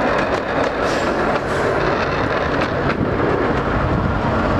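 A fairground railway ride's open passenger carriages rumbling along the track in motion, with a few faint clicks.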